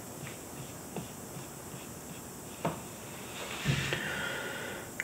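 Soft clicks and one sharper knock of a paintbrush against a watercolour palette while mixing dark green paint, then a brief scratchy rub about three and a half seconds in as the brush works on the paper.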